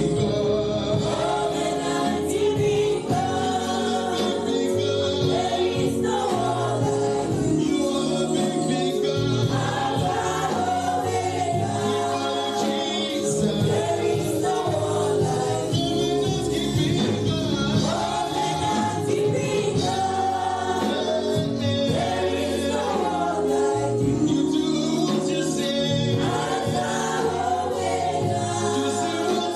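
Gospel music: a choir singing with instrumental backing.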